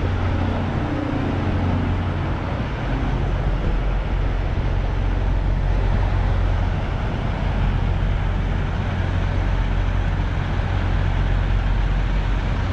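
Steady low rumble of diesel semi-trucks in a truck stop lot, with a tractor-trailer driving past.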